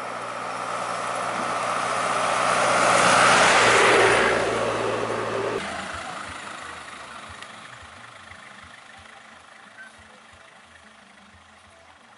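Isuzu Elf box truck passing close by: its engine and tyres grow louder, peak about three to four seconds in, then fade away as it drives off.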